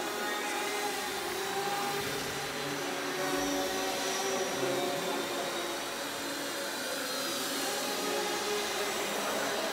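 Small electric motors and propellers of indoor radio-controlled model planes whining steadily, the pitch wavering up and down as the throttle changes.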